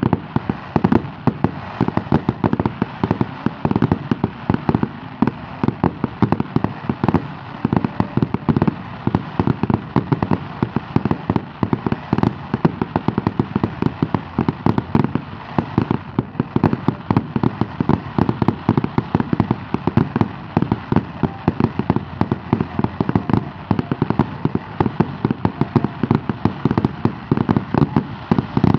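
Fireworks display: a steady barrage of bangs and crackles from bursting shells, several a second without let-up.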